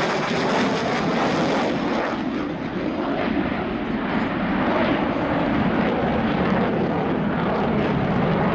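Dassault Rafale C fighter's twin Snecma M88 turbofans producing continuous, loud jet noise as the jet climbs steeply. The highest hiss drops away about two seconds in while the deep jet noise carries on.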